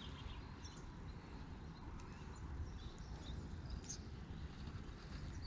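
Wind buffeting the microphone as a low, uneven rumble, with faint bird chirps at scattered moments and a couple of light clicks from handling the fishing line and float.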